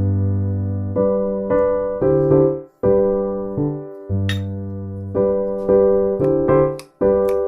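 Background music: a gentle piano or electric piano tune, notes struck and fading, with two brief breaks in the music.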